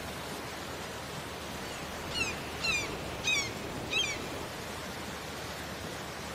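Steady ocean surf ambience, an even hiss of waves. About two seconds in, four short, high bird chirps follow one another over two seconds, each sliding down in pitch.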